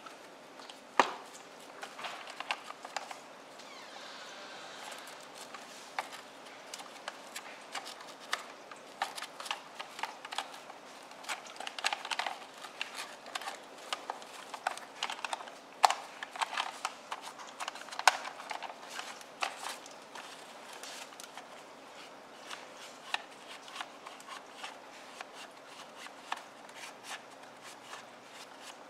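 Hard plastic toy cars handled and wiped with a cloth: irregular clicks and knocks of the plastic body and wheels, with a short stretch of cloth rubbing a few seconds in.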